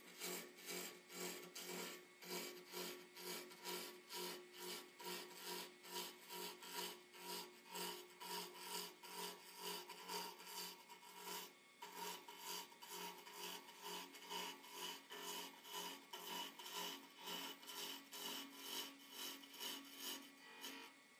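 Turning chisel scraping and cutting a spinning wooden spindle on a wood lathe, in an even rhythm of about two strokes a second.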